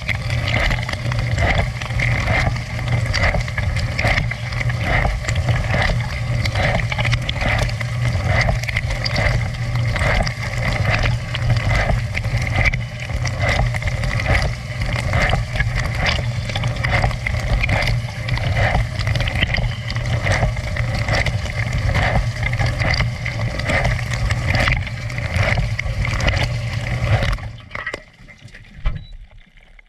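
Dishwasher running a wash, its pump motor humming steadily under water spraying and splashing inside the tub. It shuts off about 27 seconds in and falls quiet, with a short gurgle just before the end.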